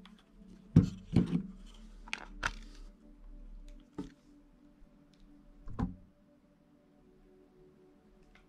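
Handling noise from a mirrorless camera and its lens: a handful of short clicks and knocks over the first six seconds, the loudest about a second in.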